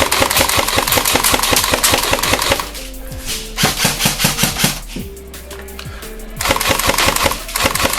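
Airsoft electric gun firing on full auto in three bursts of rapid, evenly spaced shots, the first long and the other two about a second each, over background music.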